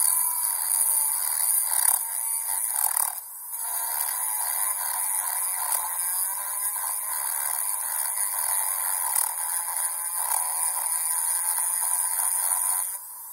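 Small rotary grinder running and grinding into the soldered hinge joint of a Zippo lighter, a steady high whine with a wavering grinding tone that varies with the pressure, cutting out briefly about three seconds in and stopping near the end.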